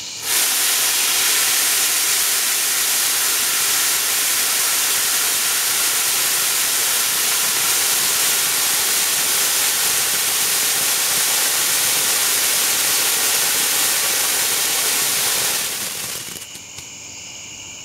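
Gold-glitter gerb (fountain firework) burning: a loud, steady rushing hiss that starts sharply about half a second in, then dies away about two seconds before the end into a quieter tail with a few small crackles.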